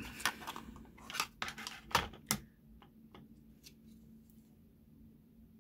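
Plastic clicks and clatter of a pocket digital scale being handled and set down on a cutting mat: a quick run of sharp clicks and knocks in the first two and a half seconds, then only a few faint taps.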